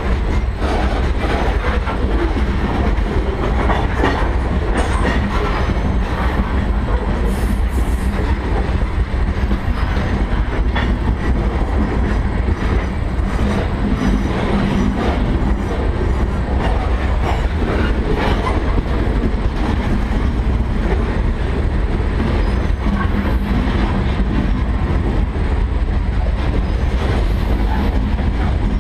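Freight train's steel gondola cars rolling past close by: a steady, loud rumble and clatter of wheels on the rails.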